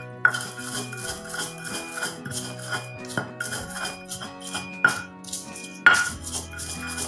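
Stone pestle grinding and knocking against a stone mortar as spices are crushed into a paste, with sharp strikes about four times and scraping clicks between. Background music plays throughout.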